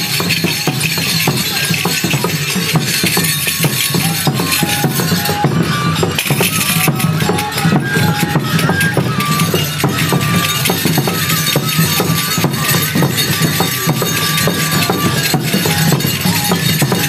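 Enburi festival music: dense metallic jingling and clinking throughout, with a high bamboo-flute melody entering about five seconds in.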